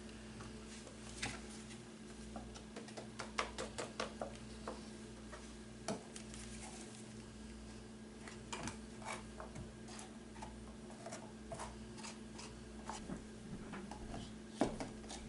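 Scattered light clicks and taps of hands working with small parts, irregular, the sharpest one near the end, over a steady low hum.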